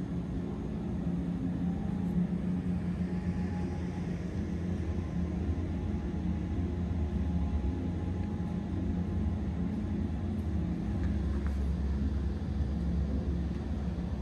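Steady low hum of room background noise, with a constant drone and no distinct events.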